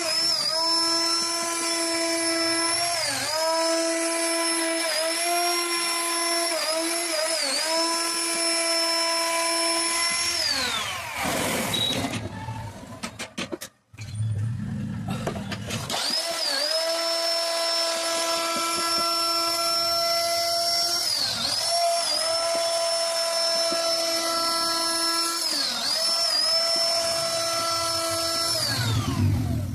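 CNC wood router spindle whining at a steady high pitch while cutting, the pitch dipping briefly now and then as it takes load. About ten seconds in it winds down to a stop and goes nearly silent for a moment, then runs steadily again and winds down once more near the end.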